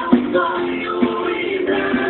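Music: a song with a melody carried over held chords and a steady beat.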